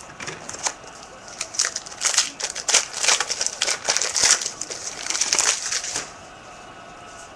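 A foil trading-card pack wrapper being torn open and crinkled: a dense run of crackling and rustling that stops about six seconds in.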